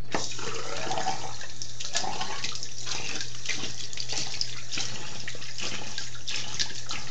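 Bathroom sink tap turned on and running, the water splashing irregularly over a hand being rinsed under the stream.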